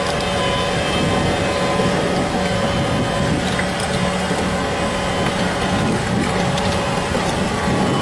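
Engine of a tracked carrier vehicle running steadily at an even pitch as it crawls over large rocks, with its tracks and the stones crunching beneath it.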